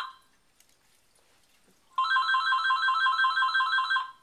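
A telephone ringing with a rapid electronic two-tone warble: after about two seconds of quiet, one ring lasting about two seconds.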